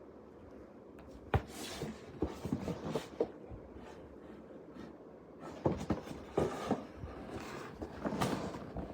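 Handling noise: rustling with scattered sharp clicks and knocks, in two clusters, the first starting about a second and a half in and the second a little past halfway.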